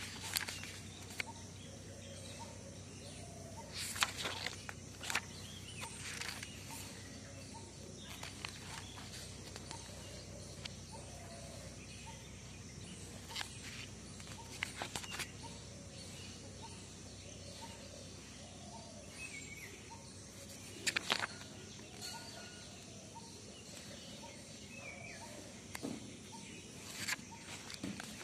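Pages of a spiral-bound paper notebook being turned and handled, a quick rustle or flap every few seconds, over a steady background hum with faint bird calls.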